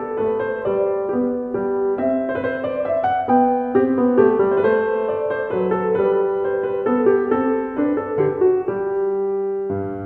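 Background piano music: a steady flow of keyboard notes with no speech over it.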